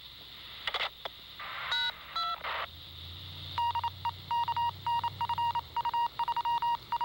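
Railroad radio scanner giving short bursts of static and a few touch-tone beeps. About halfway through comes a rapid run of short, high dialing beeps.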